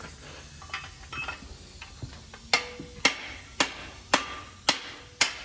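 Hammer blows on a steel drift held in a cylinder bore of a bare 1969 Mopar 440 big-block engine block, as engine parts are knocked loose during teardown. A few light taps, then six sharp metallic strikes about two a second from about two and a half seconds in, each with a brief ring.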